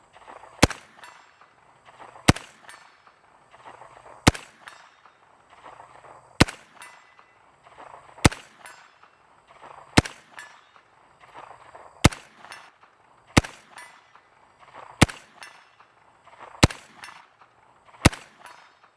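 A CMMG Banshee MK10 10mm pistol firing eleven single shots at a slow, even pace, about one and a half to two seconds apart. Each shot is a sharp crack followed by a short echo.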